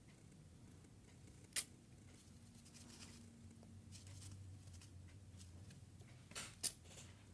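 Young pet rat sneezing: three short, sharp, high sneezes, one about a second and a half in and two in quick succession near the end, with faint ticks and rustles between.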